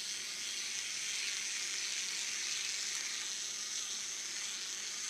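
Steady hissing whir of a small line-following robot's yellow plastic gear motors running as it drives around the track.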